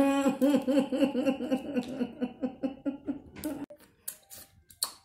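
A woman laughing hard in a rapid run of short "ha" pulses for about three and a half seconds, then a few short sharp clicks near the end.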